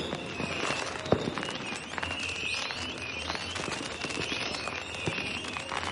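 Fireworks and firecrackers going off in a steady crackle of pops, with one louder bang about a second in. Short high squeals come and go throughout.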